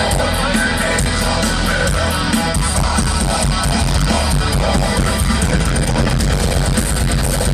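Heavy metal band playing live: distorted guitars over heavy bass and fast drumming. The recording is loud, muddy and distorted, as an audience recording from the crowd.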